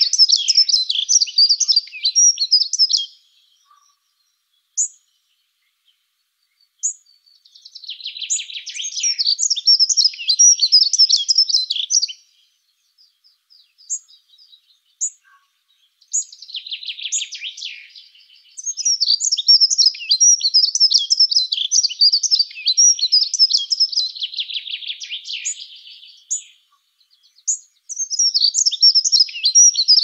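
Dunnock singing: quick, high, jangling warbling phrases a few seconds long, with short pauses in between that hold single high chips. There are four or five phrases, the longest lasting several seconds in the second half.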